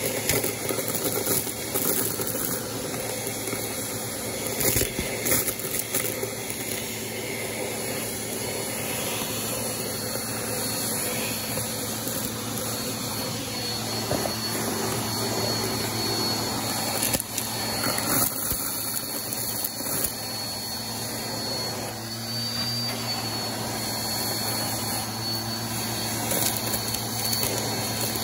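Vacuum cleaner running steadily as its crevice tool sucks up sequins and glitter from carpet, with a few sharp clicks and rattles as pieces go up the nozzle.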